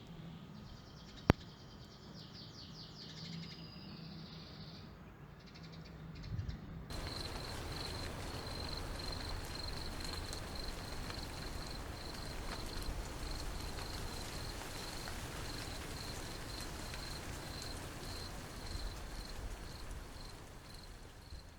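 Insect chirping: faint high chirps and a single sharp click about a second in, then from about seven seconds a steady, evenly pulsing high trill like a cricket's, over a low rumble of background noise.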